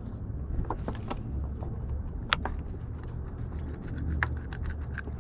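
Scattered light clicks and ticks as a knife scores a whole white perch held in a clear plastic clamshell tray, over a steady low rumble.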